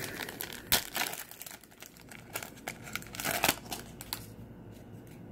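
Foil trading-card pack being torn open by hand, its wrapper crinkling and crackling, with one sharp crack about a second in. The crinkling dies down after about four seconds.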